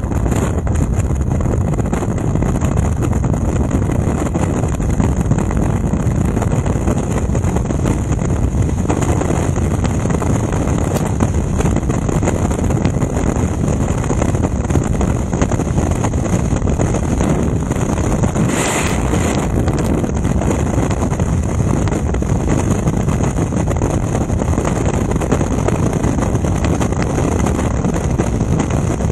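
Freefall airstream rushing over a skydiver's camera microphone: loud, steady wind noise with a heavy low rumble.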